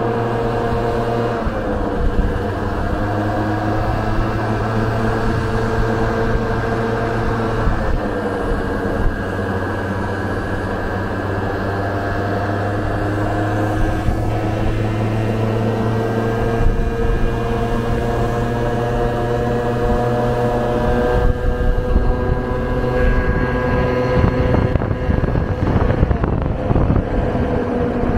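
Vespa scooter's single-cylinder engine running at cruising speed on the open road, its pitch drifting slowly up and down as the throttle changes. Uneven wind buffeting on the microphone grows over the last several seconds.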